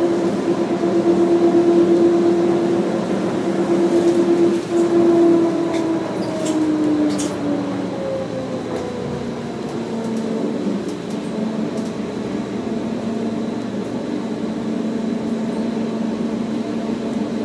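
Subway train running, with a steady whine over the rumble that drops in pitch about five seconds in and settles to a lower steady hum a few seconds later.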